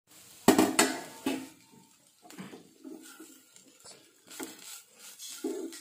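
A few loud clatters of cookware about half a second in, then a wooden spatula scraping and stirring chopped leafy greens (ponnankanni cheera thoran) around a nonstick frying pan in short, irregular strokes.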